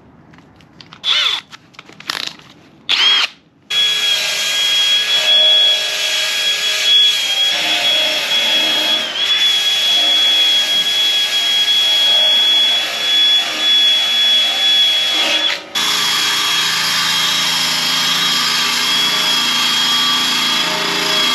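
Cordless drill spinning a wire brush wheel against the rusty steel blade of an ATV snow plow, scrubbing off surface rust. Three short test spins come first, then a steady high whine with wire scraping on the steel, broken by one brief pause about three quarters of the way through.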